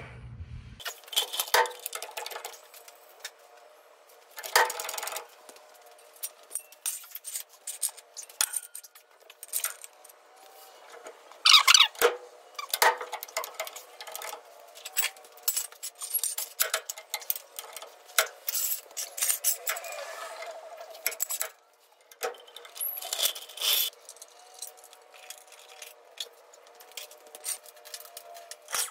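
Irregular metallic clinks, taps and rattles of hand tools and loose steel parts being handled during work under a pickup's rear axle, with the loudest cluster of clanks about twelve seconds in.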